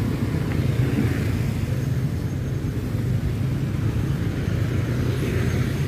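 Steady low rumble of road traffic passing close by.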